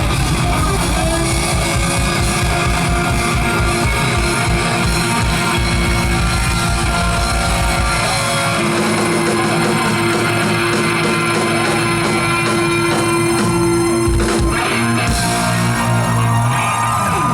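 Live rock band playing loud, with electric guitar and drum kit. A fast, driving kick-drum pulse runs through the first half, then gives way to held chords over a steady cymbal pattern.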